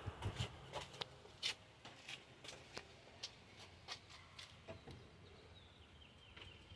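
Faint, irregular clicks and ticks over quiet background noise, thinning out after about five seconds.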